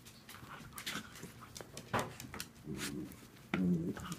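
Two dachshunds play-fighting: scuffling and small clicks, with two short low dog vocal sounds in the second half, the second one the loudest.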